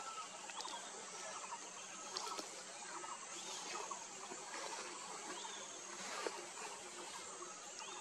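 Forest ambience: a steady high hum with many short, scattered chirps of distant birds.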